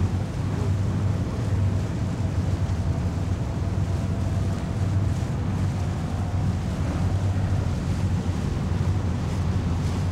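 Motor launch engine running at a steady low drone under way, with wind buffeting the microphone.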